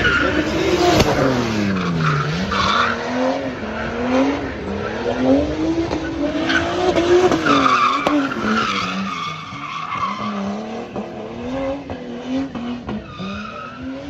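Nissan S13's stock RB25DET turbocharged straight-six revving up and down while drifting, with tyres squealing. The engine note drops steeply about two seconds in, then climbs and falls again several times, growing somewhat fainter in the second half.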